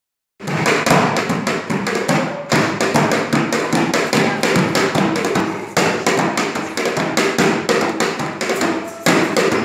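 Rapid, continuous tapping and knocking, several strikes a second, in runs of about three seconds that start loud, fade a little, and jump back up about two and a half, six and nine seconds in.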